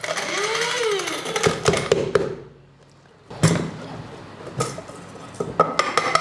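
Small bullet-style mixer grinder motor running with rock sugar crystals rattling against the blade and jar, stopping about two seconds in. Scattered clicks and knocks of the jar being handled follow.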